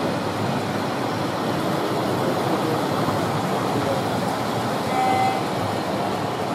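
Model train running along the layout's track close by, over a steady background of hall noise. A short high tone sounds once, about five seconds in.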